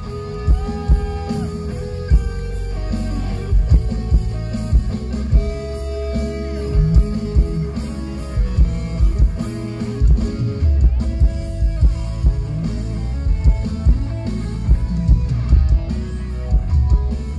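Live rock band playing an instrumental passage: electric guitar notes, some of them bent, over bass guitar and a drum kit, with a heavy low end.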